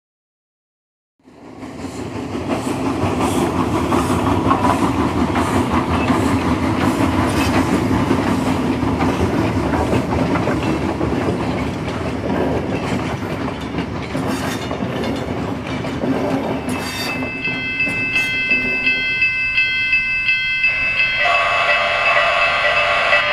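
O-gauge model diesel locomotive and freight train running on the track, fading in after about a second of silence. Near the end, a multi-tone horn sounds in several blasts.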